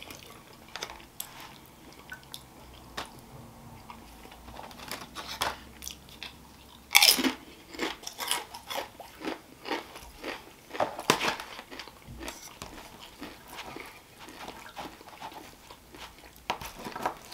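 A man chewing food close to the microphone, with many short wet mouth clicks. Near the end a knife and fork scrape and tap as he cuts food in a plastic takeout tray.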